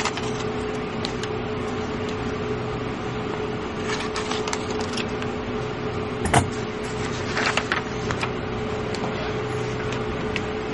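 Sheets of paper being handled and rustled, with a few light clicks and one sharper knock about six seconds in, over a steady mechanical hum with a constant tone.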